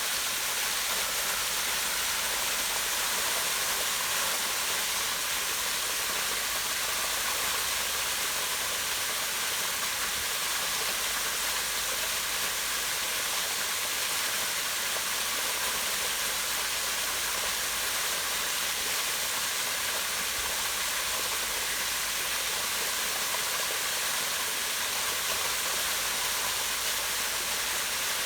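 Small waterfall pouring down rocks into a pond: a steady, unbroken rush of falling water.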